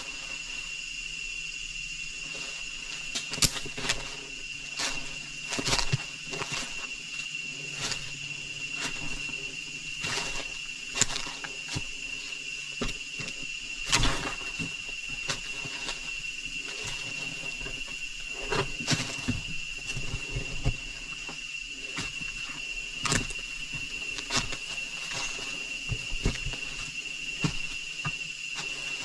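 Insects droning steadily at one high pitch, with scattered knocks and clicks over it.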